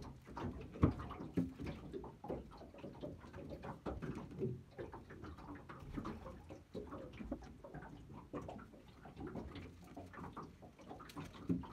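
Water lapping and slapping against the hull of a small aluminium boat, an irregular run of small splashes and knocks, the sharpest about a second in.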